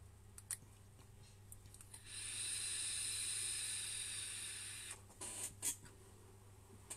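A small vape device set to 30 watts being drawn on: a click about half a second in, then a steady hiss of air and vapour through the coil for about three seconds, followed by a few short breathy puffs.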